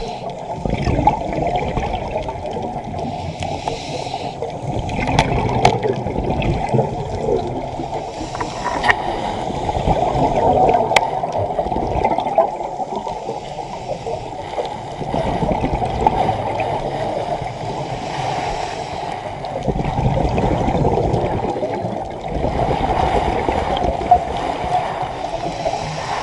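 Sea water gurgling and splashing in a continuous churning wash that swells and ebbs every few seconds, with a few sharp clicks.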